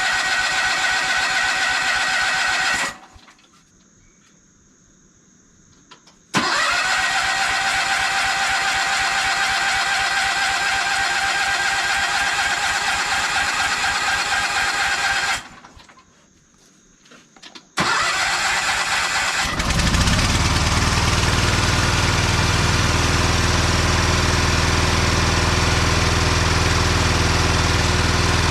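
Case 446 garden tractor engine cranked on its electric starter in three long tries with pauses between. On the third try it catches a couple of seconds in and runs steadily. The hard start is probably a little bad gas, the owner thinks.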